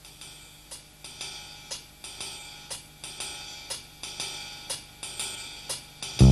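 Soundtrack music: a hi-hat ticking alone at a steady beat, about two strokes a second, then a full band with bass and guitar comes in loudly near the end.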